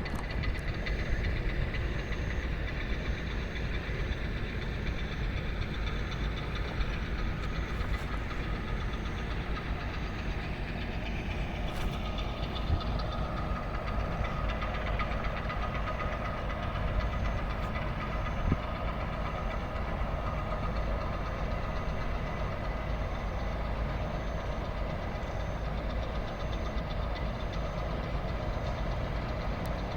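Diesel engines of heavy construction machinery running steadily, with a faint whine coming in about halfway through and a few short knocks.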